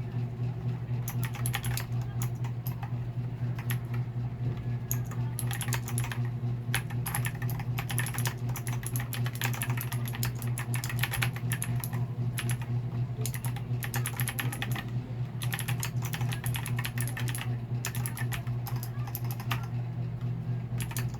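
Typing on a Darkflash GD101 wireless mechanical keyboard: rapid key clicks in runs with short pauses, over a steady low hum.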